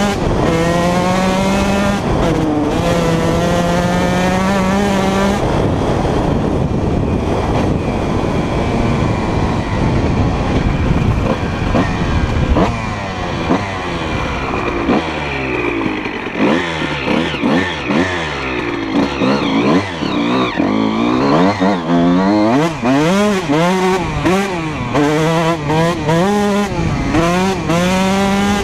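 2004 Honda CR125R's single-cylinder two-stroke engine, breathing through a full Pro Circuit exhaust, revving under way. Its pitch climbs and drops as the throttle opens and closes through the gears, with quick repeated up-and-down swings in the second half.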